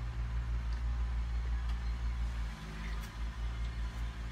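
A steady low hum, with a few faint sips and swallows as someone drinks from a water bottle.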